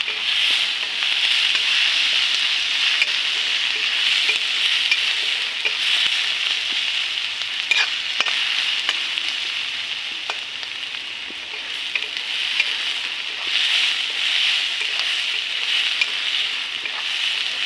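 Sliced onion sizzling in hot oil in a steel kadai as it is sautéed, with a metal spatula stirring and now and then clicking against the pan.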